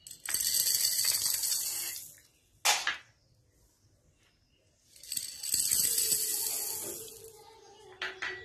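Small plastic beads tipped out of a glass bowl, clattering and scattering across a wooden tabletop, in two pours: one of about two seconds at the start and a longer one about five seconds in. Each pour is followed by a single sharp click.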